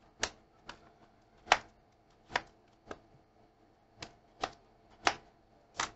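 Kitchen knife slicing through raw potatoes and knocking on a wooden cutting board: about nine sharp knocks at an uneven pace.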